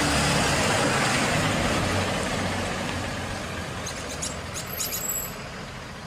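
Bus sound effect: a loud rushing hiss over a low engine hum, fading steadily over several seconds, with a few faint high squeaks near the end.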